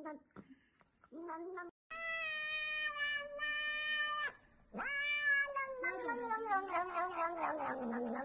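Domestic cat meowing in long, drawn-out calls. A short call about a second in is followed by one held at a steady pitch for about two seconds, then a longer one that slides down in pitch.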